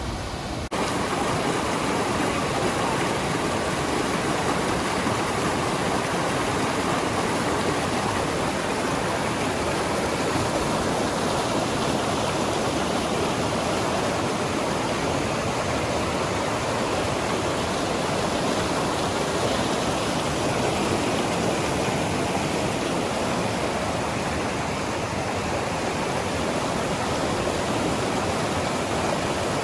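Waterfall pouring: a dense, steady rush of falling water. Its character changes abruptly under a second in, then holds even.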